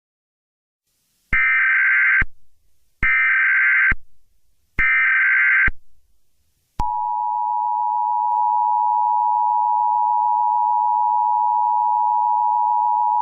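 Emergency Alert System tones: three bursts of SAME header data, each a harsh digital squawk about a second long with a short gap between, then the steady two-tone EAS Attention Signal (853 and 960 Hz) comes on about seven seconds in and holds.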